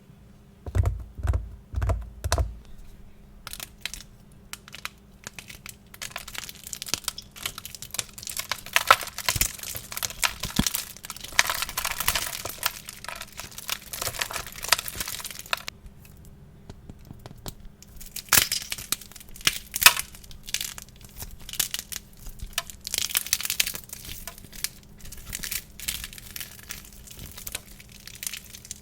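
Wax being cracked and crushed: dense, crisp snapping and crackling in two long stretches with a short lull between them, after a few dull thumps at the start.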